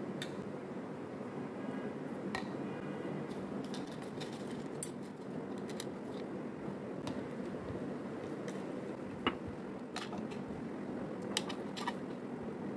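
Spoon and hands mixing ghee into flour in a plastic bowl: scattered light clicks and taps, the sharpest about five and nine seconds in, over a steady low background hum.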